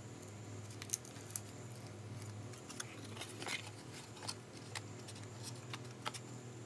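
Scattered light clicks and taps, about eight in all, with faint scraping as thin wooden craft panels are handled, over a steady low hum.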